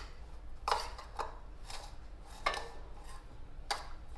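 A spoon scraping and clinking against a large bowl while stirring a thick mashed-potato filling, in short, uneven strokes about one or two a second.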